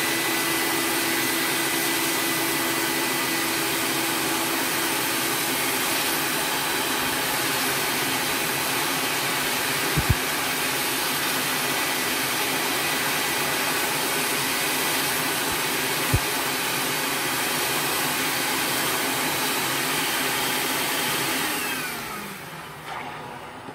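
Shop-vac running steadily, giving the suction for a Squeaky Clean MK3 record-cleaning machine's vacuum arm as it sucks cleaning solution off a hand-turned vinyl record. There are two brief knocks, about ten and sixteen seconds in. Near the end the vac is switched off and winds down.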